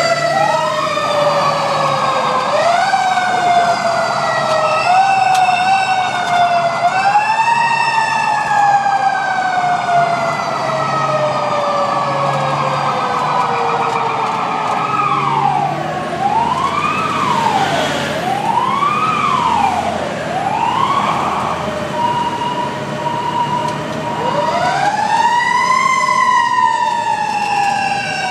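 Fire truck sirens heard from inside the cab. Several wailing tones overlap, each rising and then falling slowly in pitch, with a quicker run of rises and falls near the middle.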